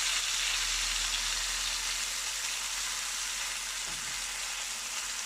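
Marinated chicken legs sizzling steadily in hot oil and butter in a frying pan.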